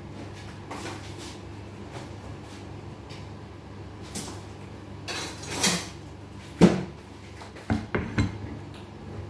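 Kitchen clatter of dishes and utensils being handled: a short rustle, then one sharp knock and a few lighter clicks in the second half, over a low steady hum.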